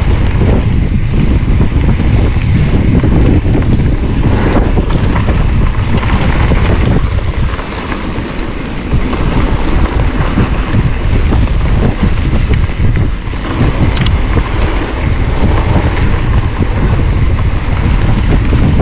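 Wind buffeting the microphone over the rumble and rattle of a mountain bike rolling fast down a rough trail, easing briefly about eight seconds in.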